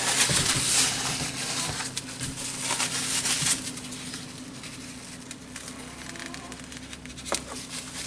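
Paper towel rustling and rubbing as it wipes chocolate pudding drips off a porcelain cup's rim, loudest in the first few seconds, over a low steady hum. A single click near the end.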